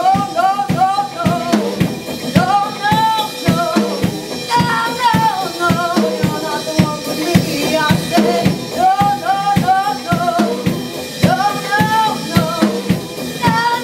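Live band playing a song: a woman sings lead in high, bending phrases over acoustic and electric guitars, bass and a drum kit keeping a steady beat.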